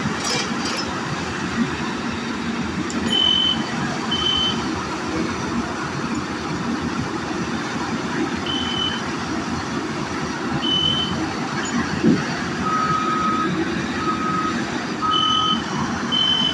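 Heavy construction machinery running steadily, with reversing alarms sounding short beeps at intervals: a higher-pitched one throughout and a lower-pitched one joining in during the last few seconds. A single heavy thud stands out about twelve seconds in.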